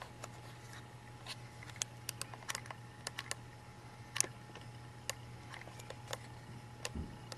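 Handling noise from a handheld camera as it is moved in toward the screen: faint, irregular sharp clicks and ticks, about twenty of them, with a soft thump near the end, over a steady low electrical hum.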